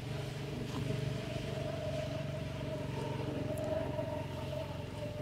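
An engine running steadily: a low hum with a steady higher tone over it.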